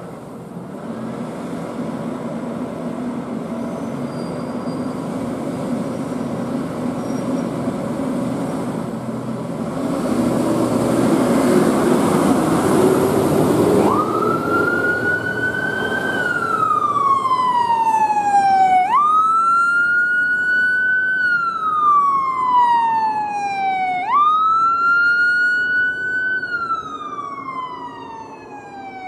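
Emergency vehicle siren that starts about halfway through, each cycle winding up quickly and then sliding slowly down in pitch, repeating about every five seconds. Before it, the vehicle's engine and road noise grow louder as it approaches.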